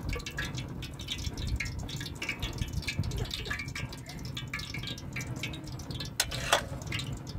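Hot oil crackling and spattering in a frying pan on a gas burner, a dense patter of small pops over a low rumble. Two sharper metallic clicks about six seconds in, a utensil knocking against a metal pot.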